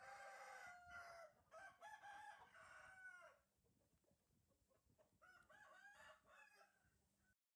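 Animal calls: a long, slightly falling cry, then a run of shorter wavering calls that stop about three seconds in, and fainter, choppier calls again from about five seconds in.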